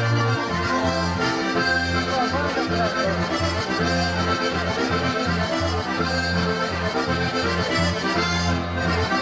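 Sardinian organetto (diatonic button accordion) playing a traditional dance tune for the ballo sardo, with sustained reedy chords over a bass that changes in a steady rhythm.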